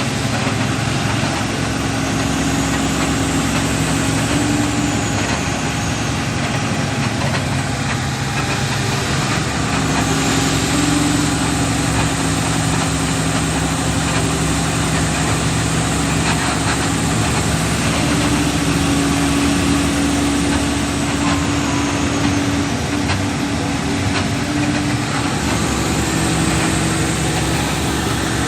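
Vehicle engine running steadily, its pitch stepping slightly up and down a few times.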